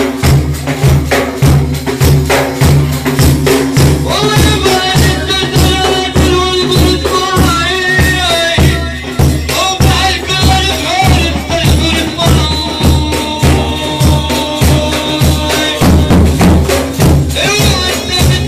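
Sufi dhikr chanting: a voice chanting over a steady beat of frame drums, about two strokes a second.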